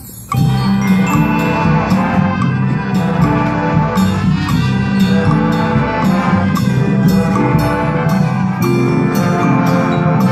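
High school marching band playing its show music: after a brief pause, the full band comes in loud about a third of a second in, with sustained brass and woodwind notes over repeated percussion hits and mallet percussion.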